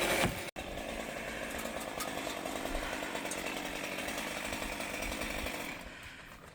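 Chainsaw running at a steady pitch, breaking off suddenly about half a second in, then fading away near the end.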